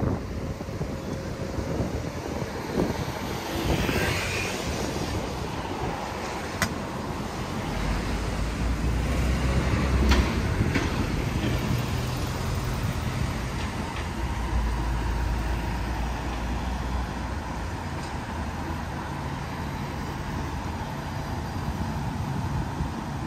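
City street traffic: motor vehicles passing with a steady low engine rumble that swells about eight to ten seconds in and again from about fifteen to eighteen seconds in, with a single sharp click near seven seconds in.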